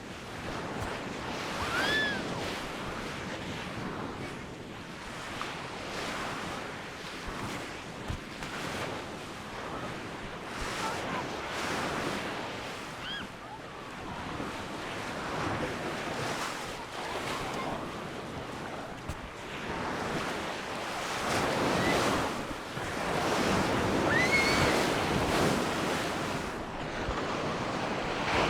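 Waves breaking and washing up a beach, a steady surf noise that swells and ebbs, with some wind on the microphone. A couple of short high calls rise and fall briefly over the surf, once about two seconds in and again near the end.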